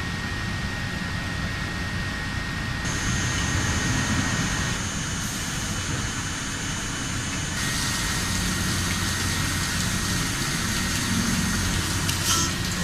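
WFL M60 CNC lathe running as it machines a steel crankshaft: a steady mechanical drone and hiss with thin high whining tones. The sound changes abruptly about three and about seven and a half seconds in, and there is a short click near the end.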